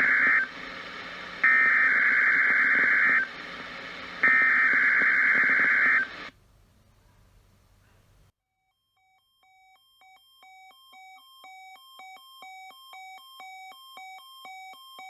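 NOAA Weather Radio EAS/SAME header for a Required Weekly Test: harsh digital data bursts sent three times with about a second between. After a brief silence, a weather-radio receiver's alert beeps about twice a second, growing steadily louder.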